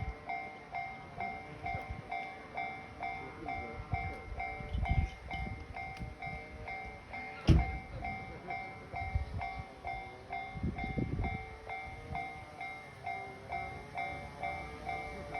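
Japanese level-crossing warning alarm dinging in a steady, even rhythm, about two strikes a second, while a train passes with low uneven rumbling and clacks. A single sharp knock comes about seven and a half seconds in.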